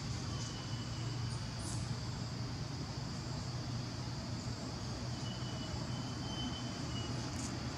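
Steady forest ambience: a constant insect chorus in the high range over a low, unchanging hum, with a faint thin whistle near the start and again in the second half.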